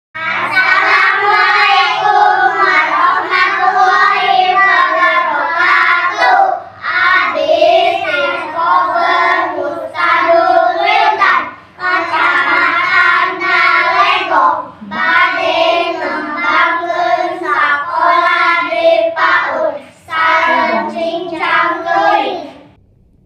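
A group of young children singing together, a Sundanese rampak sekar song, in sung phrases broken by short pauses; the singing stops just before the end.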